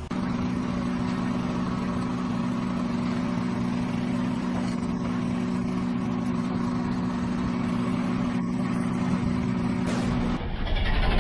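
Car engine running with a steady, even hum. About ten seconds in, a louder, rougher noise takes over as the car's tyre rolls onto the crushed items.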